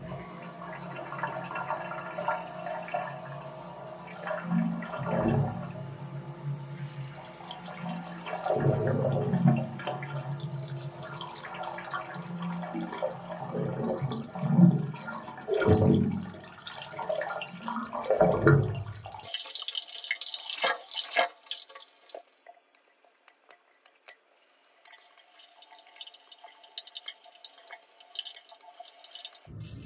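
Water rushing and gurgling in a washbasin drain during high-pressure drain jetting, over a steady hum with uneven louder surges. About two-thirds of the way through the hum and rush stop, leaving thin trickling and dripping.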